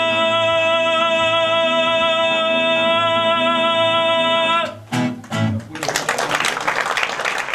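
A male singer holds the last note of the song, steady for about five seconds, over acoustic guitar. It cuts off, the guitar closes with a couple of short strokes, and about six seconds in the audience starts applauding.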